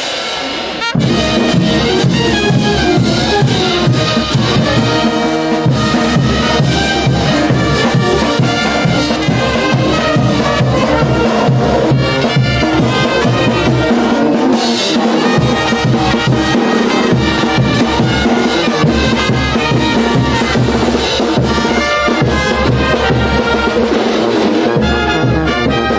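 Brass band playing live: trumpets and a sousaphone over bass drum and cymbals in a steady beat, coming in at full strength about a second in.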